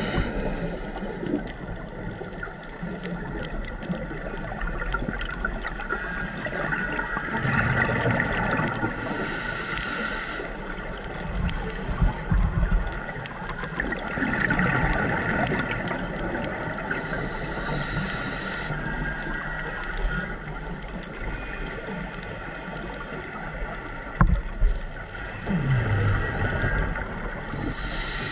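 Underwater sound picked up through a diving camera: a scuba diver's regulator breathing, with a hissing inhale about every nine seconds and rumbling, bubbling exhales between, over a steady wash of water noise.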